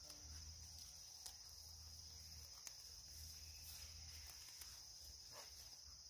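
Faint, steady high-pitched drone of insects, with a few soft ticks from weeds being pulled by hand.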